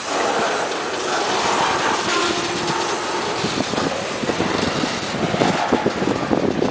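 Freight train boxcars rolling past close by: a steady rumble and rattle of steel wheels on the rails, with sharp clicks and clanks coming more often near the end.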